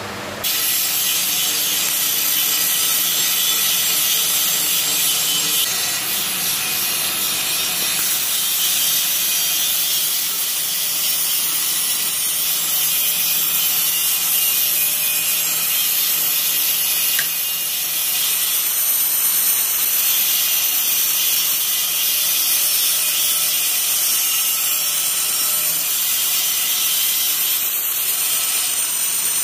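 Handheld 1000 W fiber laser welder running a continuous weld: a steady hissing crackle that starts abruptly under a second in, with a brief dip about 17 seconds in.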